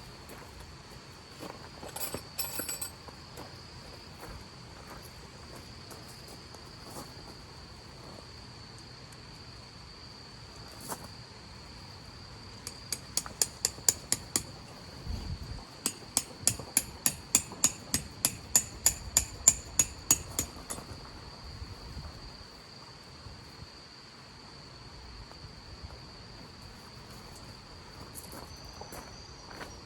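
Tent pegs being driven in with a hammer: two runs of sharp ringing metallic strikes in the middle, about three a second. Crickets trill steadily throughout.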